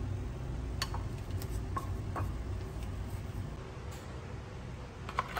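Light, scattered clicks and taps from a ceramic bowl and a plastic butter tub being handled while cooking, over a low steady hum. A couple of sharper clicks come near the end.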